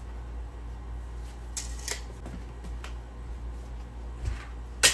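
Handling noise: a few light clicks and rustles, then one sharp click near the end, over a steady low hum.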